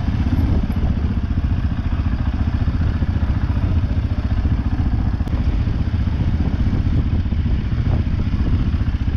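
CFMoto 520S ATV's single-cylinder engine running steadily as the quad rides over a rough grass track.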